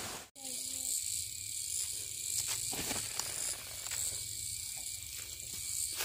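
Insects chirring steadily in a high, even drone, with a few faint knocks and scrapes over it. The sound drops out completely for a moment just after the start.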